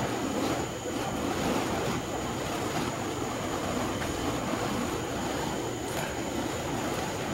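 Flaming fire poi whooshing as they are spun round, a continuous wavering rush of burning wicks swinging through the air. A faint steady high-pitched tone runs underneath.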